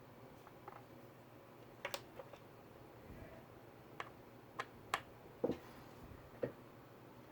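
Light clicks and taps, about seven of them spread irregularly over a few seconds, from small tools and parts being handled while working on a laptop, against faint room hiss.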